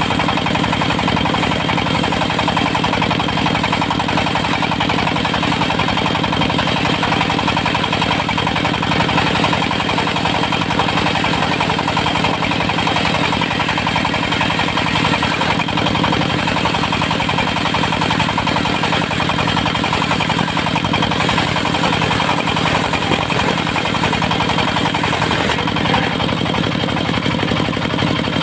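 Diesel engine driving a mobile circular sawmill, running steadily at an even speed.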